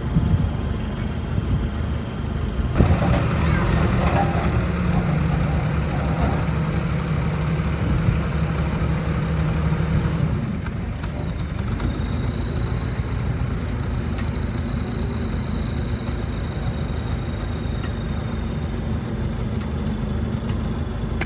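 Diesel engine of heavy earthmoving machinery running. About three seconds in it works harder, with a few metallic clanks, then settles to a steadier run at about the halfway point, with a thin high whine in the second half.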